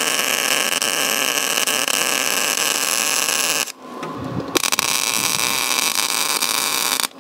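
Arc welding a small steel patch panel into a car's rusty rear wheel arch: two long runs of the welding arc, the first about three and a half seconds, then a short break, then a second run of about two and a half seconds that stops just before the end.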